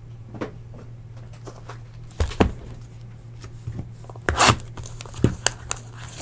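A cardboard box of trading cards being handled on a table. Two knocks just over two seconds in as the box is set down, then a short rustling scrape and a few light clicks as it is worked open.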